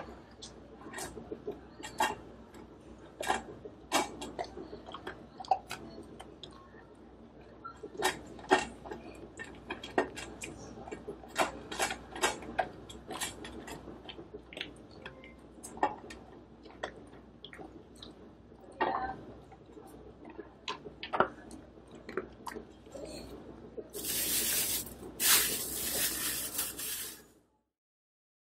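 Pungsan dog eating dry kibble from a stainless steel bowl: irregular crunching, with kibble clicking against the metal bowl. Near the end there is a louder scraping noise for about three seconds, then the sound cuts off suddenly.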